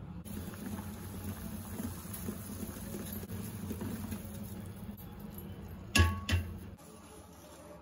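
Eggs boiling in a steel pot of water, a steady, irregular bubbling. About six seconds in come two sharp knocks, a third of a second apart, as a wooden spatula strikes the pot.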